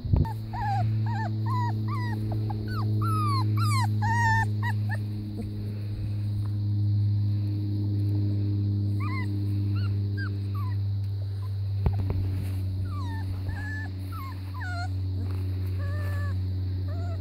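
Puppies whimpering and yipping in many short high cries, in two spells, over a steady low mechanical hum.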